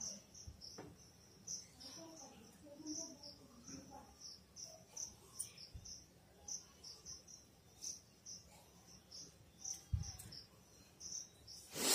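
Insects chirping steadily in the background, about two short high chirps a second, with a short low thump about ten seconds in.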